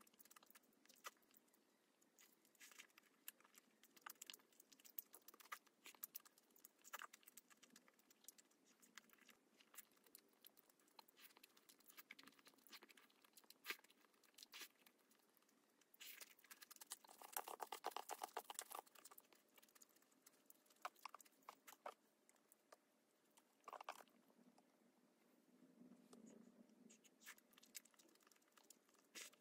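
Close-miked eating sounds: bites of crisp deep-fried battered pork (tangsuyuk) crunching and being chewed, and jjajangmyeon noodles slurped from chopsticks. They come as a string of small crackles and clicks, with a denser run of about two seconds a little past halfway.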